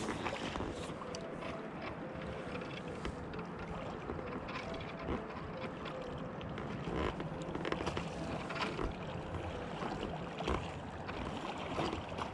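Flowing river water and wind on the microphone, with scattered light knocks and a splash near the end as a hooked steelhead thrashes at the surface.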